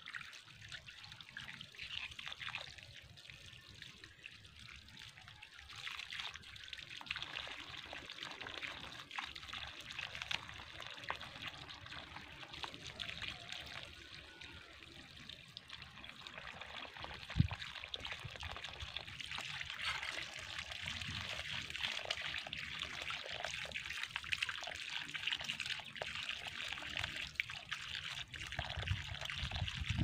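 Water trickling steadily from a garden hose, running over hands and vegetable roots being rinsed and spilling onto the ground, a little stronger in the second half. One sharp knock a little past halfway.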